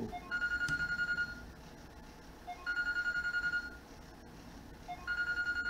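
A telephone ringing: three electronic rings, each a high trilling tone about a second long, repeating every couple of seconds.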